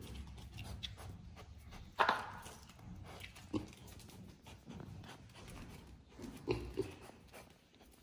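A pig grunting and snuffling quietly now and then, with a few short sounds; the loudest comes about two seconds in.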